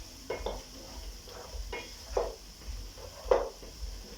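Cooking spoon stirring and scraping beef and onions in a pot: a handful of short scrapes and knocks, the loudest about three seconds in.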